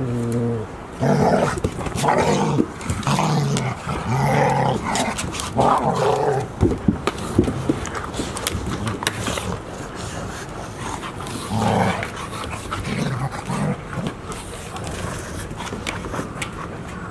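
Golden retrievers play-fighting: growls and short barks in bursts over the first six seconds and again about twelve to fourteen seconds in, with a run of sharp clicks and scuffling in between.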